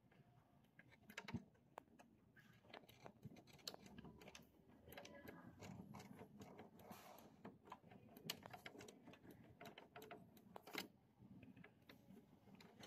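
Faint, irregular small clicks and scrapes of a screwdriver driving a small screw back into the encoder sensor mount of an inkjet printer's frame.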